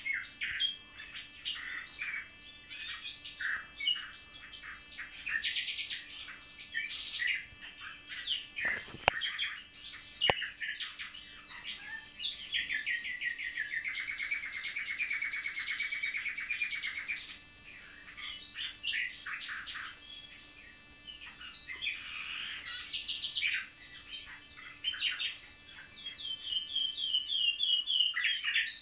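Common nightingales and a blackcap singing: varied whistled phrases and fast runs of repeated notes, with a long rapid pulsed rattle midway. A brief knock about nine seconds in.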